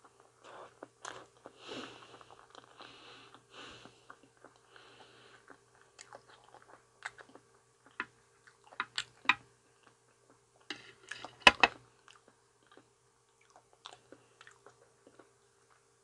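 Close-miked chewing of soft ripe banana: moist, squishy mouth sounds, irregular and fairly soft, with a few sharp clicks scattered through, the loudest a short cluster about eleven seconds in.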